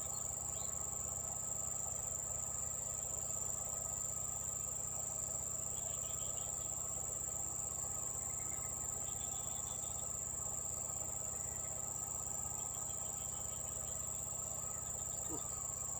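Insects trilling in one steady, unbroken high-pitched tone, over a low steady hum, with a few faint short chirps now and then.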